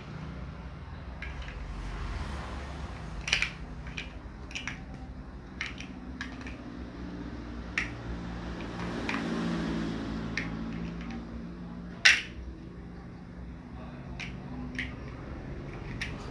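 Large plastic toy building blocks clicking and clacking together as they are handled and pressed together, in scattered sharp clicks at irregular intervals, the loudest about twelve seconds in.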